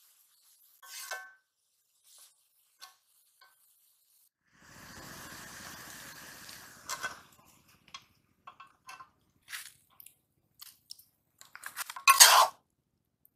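Metal spatula clinking and scraping against a metal karahi of frying cabbage: scattered clinks, a longer stretch of scraping about five seconds in, and the loudest scrape near the end as cabbage is lifted out of the pan.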